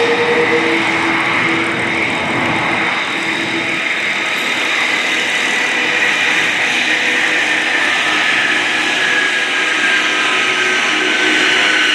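Twin Beech 18's two radial engines running at power as the aircraft pulls through a loop and levels out. A steady loud drone with a whine that slowly falls in pitch over the second half.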